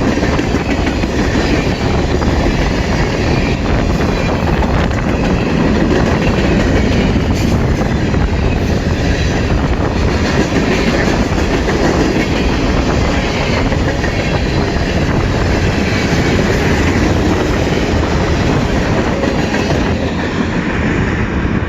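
Canadian National freight train's cars rolling past, a steady, loud, unbroken noise of wheels on rails.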